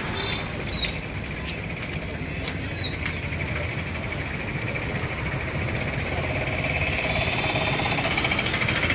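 Motor vehicle engine running steadily amid street traffic noise, growing louder toward the end.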